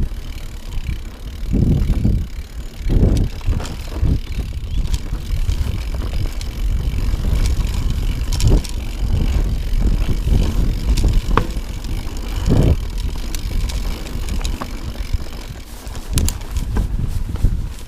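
Mountain bike riding down a rocky trail: tyres rolling over stones with a constant rumble, several heavier thuds as the bike hits rocks, and scattered rattling clicks.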